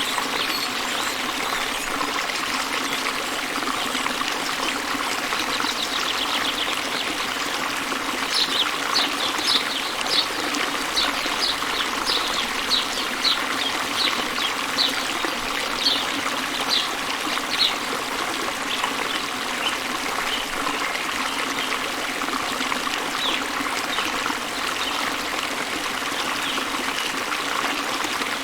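Waterfall running steadily, with a bird chirping over it: a quick run of short high notes, about two a second, starting about a third of the way in and lasting some ten seconds, then a few scattered chirps.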